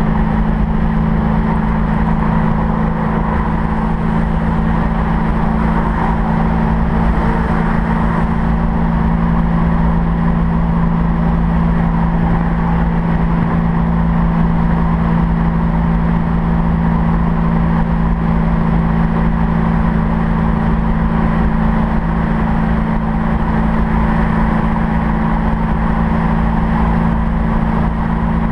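A 1965 Mustang GT350R pro-touring car's V8 engine droning steadily at highway cruise, with road and wind noise.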